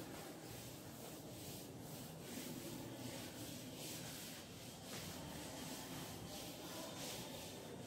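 A blackboard duster wiped over a chalkboard in repeated back-and-forth strokes, rubbing off chalk writing.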